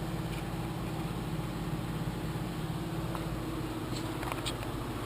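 Steady low machine hum at a constant level, with a couple of faint clicks about four seconds in.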